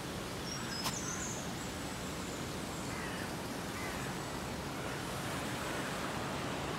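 Steady outdoor background noise, an even hiss, with a faint high bird chirp and a single soft click just under a second in.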